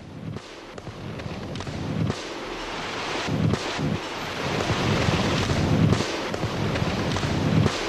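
Delay-timed rock-blasting charges going off one after another, a rolling run of explosions that grows louder, with several stronger surges.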